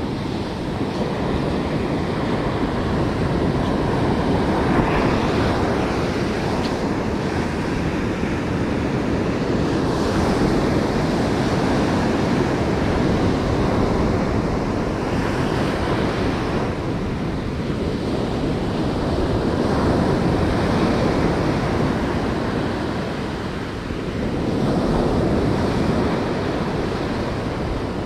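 Ocean surf breaking on a sandy beach, waves rushing up the shore and washing back, the wash swelling louder and easing off every few seconds.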